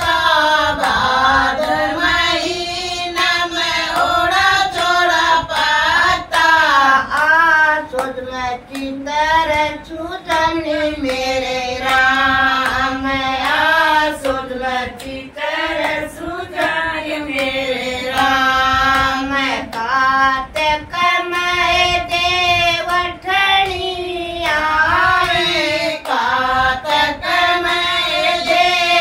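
A small group of women singing a Hindi devotional bhajan to Tulsi Mata together, without instruments, clapping their hands in time.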